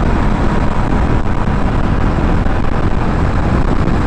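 Steady wind rush on a motorcyclist's lavalier microphone at about 80 km/h, with the motorcycle's engine running underneath.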